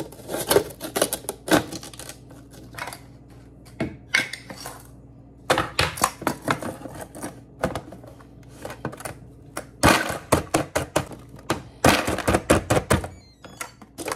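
Ice cubes cracking out of a press-down plastic ice cube tray into its storage bin as the tray is pushed down, in several bursts of rapid sharp cracks and clicks.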